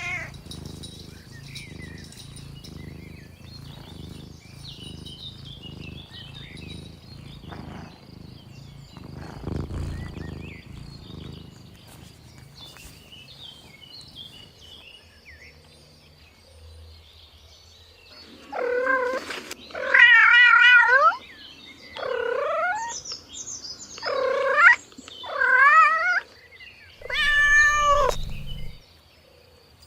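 A cat meowing: six loud, drawn-out meows, each rising and falling in pitch, coming one after another in the last ten seconds. Before them there is only faint background with scattered soft chirps.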